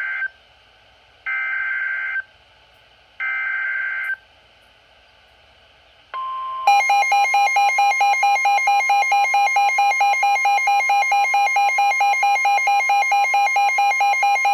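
Emergency Alert System SAME header data bursts: the tail of one and two more full bursts of buzzy electronic screeching, about a second each with a second of quiet between them. After a short pause a steady alert tone starts. Half a second later the loud, quickly wavering EAS attention signal joins it and holds for about eight seconds.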